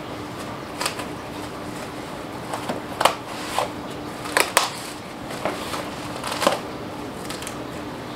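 Plastic cling film crinkling and rustling as it is wrapped and pressed around a burrito, with several sharp crackles, the loudest about three seconds and four and a half seconds in.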